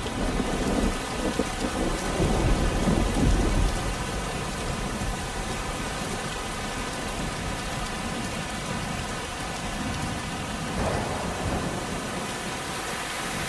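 Small waterfall on a stream pouring over rocks: a steady rush and splash of water with a deep rumble. It is uneven for the first few seconds, then even.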